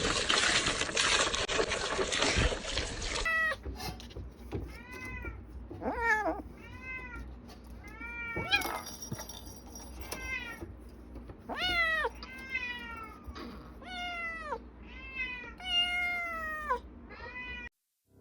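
A domestic cat meowing over and over: a quick run of about twenty short meows, each rising then falling in pitch, that stops suddenly near the end. Before the meowing starts, about three seconds of dense clattering noise.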